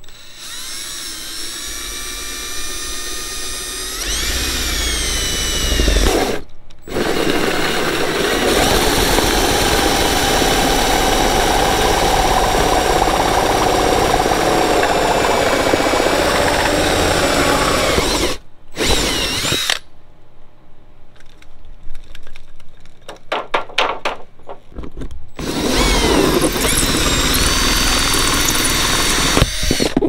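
Cordless drill driving a hole saw through the trailer wall. The motor whines up to speed and runs in long stretches with two brief stops, then comes in a run of short trigger pulses before cutting steadily again.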